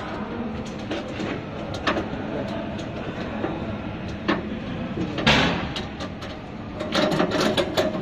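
Small metal clicks and scrapes of a hex key working the screws of a sheet-metal UV lamp housing, over a steady background of machinery noise. A louder rattling scrape comes about five seconds in, and a quick run of clicks near the end.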